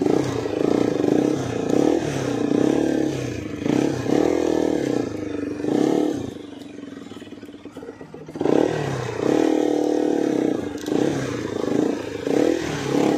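Motorcycle engine running under way, revving up and down with its pitch rising and falling; it eases off for a couple of seconds around the middle, then revs up again.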